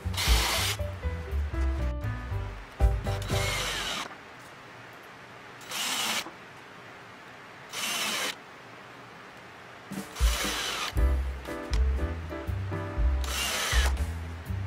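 Cordless drill-driver running in about six short bursts, each well under a second long, as small screws are driven into the thin plywood back panel of a wooden picture frame. Background music plays under parts of it.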